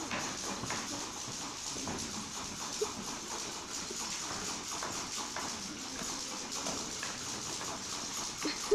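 Scattered footsteps and light knocks of actors on a wooden stage, with one sharper knock about three seconds in, over a steady tape hiss.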